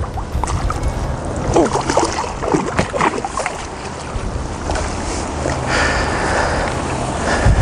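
Wind rumbling on the microphone, with water splashing as a hooked carp thrashes at the bank; the splashing is most lively in the first half.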